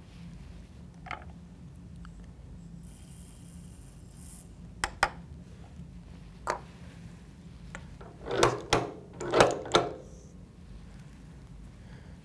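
Small clicks and taps of brass cartridge cases and the scale's metal powder pan being handled on a reloading bench, with a brief soft hiss a few seconds in. About eight seconds in comes a cluster of louder rattling scrapes.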